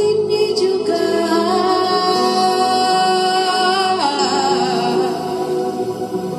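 Worship singers holding long sung notes with vibrato over sustained keyboard chords; the vocal line steps up about a second in and slides down about four seconds in.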